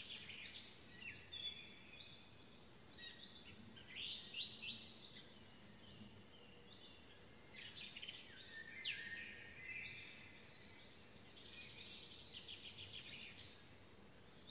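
Songbirds singing in a hedgerow: rapid trilled phrases near the start and again near the end, with louder whistled phrases about four and eight seconds in, one sweeping downward.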